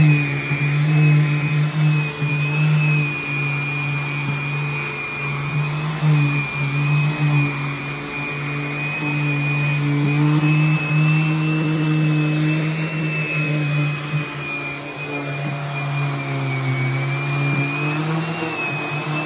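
Electric random orbital sander running on a bare wood floor with a dust-extraction vacuum drawing through its hose: a steady hum under a high whine that wavers slightly as the sander is worked along the edge.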